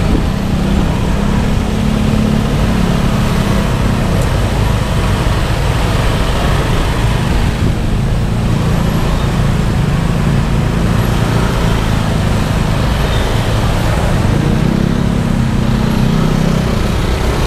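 Motorbike engine running at low speed while riding slowly in heavy traffic, its pitch rising and falling a little as it speeds up and eases off, with steady road traffic around it.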